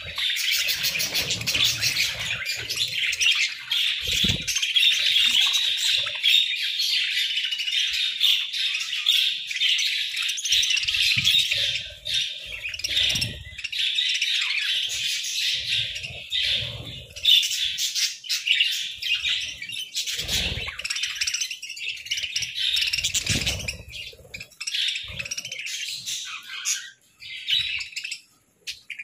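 A flock of budgerigars chattering and chirping, a dense, continuous warble of many birds at once. A few brief low thumps come through now and then, and the chatter thins out near the end.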